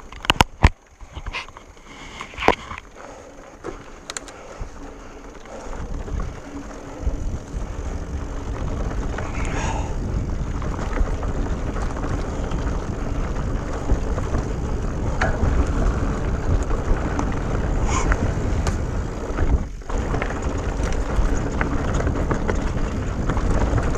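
Mountain bike rolling fast down a dirt singletrack: a steady rumble of tyres and jolts over the trail that builds over the first several seconds as speed picks up. A few sharp knocks come near the start.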